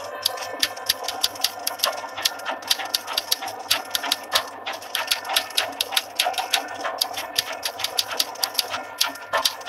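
Rapid, uneven clatter of typewriter keystrokes, several a second.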